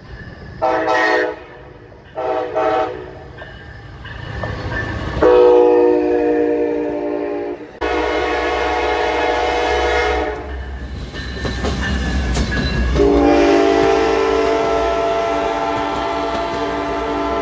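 Amtrak passenger train horns. A diesel locomotive sounds two short blasts and then a longer one that cuts off suddenly about eight seconds in. A second train then sounds its horn, ending in a long blast while its passenger cars roll past with a steady low rumble.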